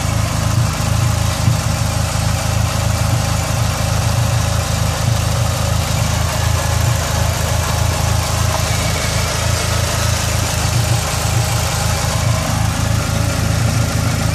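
Dodge Neon SRT-4's turbocharged 2.4-litre four-cylinder idling steadily with a cylinder-four misfire (code P0304). The plugs, wires, injectors and coil pack have been replaced, and the owner takes a leaking intake manifold gasket as the likely cause.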